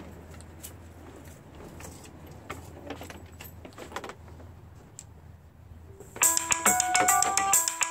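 Faint scattered clicks and light rattling over a low hum, then about six seconds in a loud electronic beeping melody starts, stepping between a few fixed notes like a phone ringtone.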